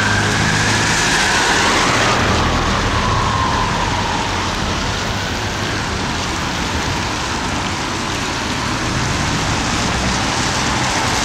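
Fire engine siren wailing, one slow rise and fall that fades away over the first few seconds as the Dennis Sabre water ladder drives off, over steady heavy rain and passing traffic.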